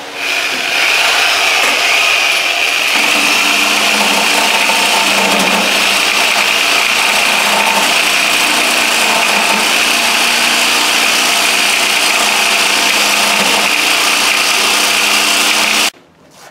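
Corded electric grinder cutting into the hardened steel of an old bearing race or seal sleeve on a commercial washing machine's tub shaft, a steady, loud grinding whine of metal that stops suddenly near the end.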